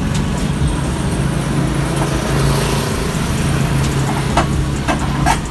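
Engine running steadily with a low hum, with a few light clicks near the end.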